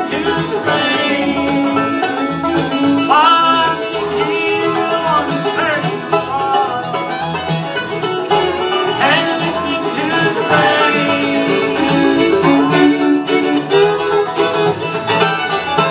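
A bluegrass band playing live: banjo, fiddle, acoustic guitars, mandolin and upright bass, with the bass keeping a steady pulse about twice a second.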